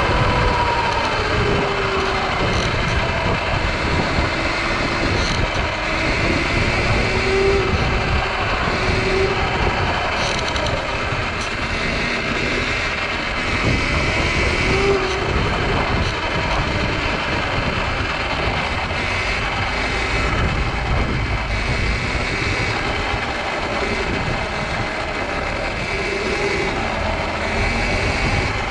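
Steady running noise of a vehicle in motion, holding an even level throughout.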